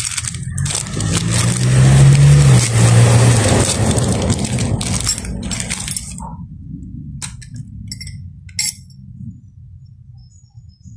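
Plastic wrapping crinkling and tearing loudly for about six seconds as a new tubular spark plug spanner is unwrapped. After that, a few light metallic clinks come from the bare tool being handled.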